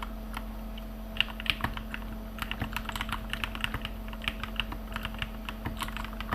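Typing on an RK61 mechanical keyboard with lubed Gateron Milky Top Black Bottom Yellow linear switches and blank PBT keycaps, struck softly without bottoming out: quick uneven runs of key clacks, with short pauses in the first two seconds, then steady typing until just before the end.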